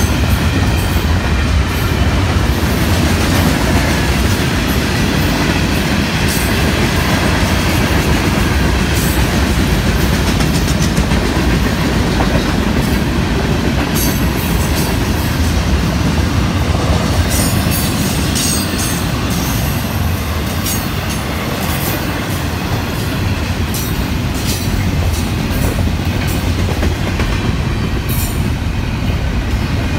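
Freight train of mixed cars rolling steadily past: a continuous rumble of steel wheels on the rails with clickety-clack, and bunches of sharp clicks from the wheels in the second half.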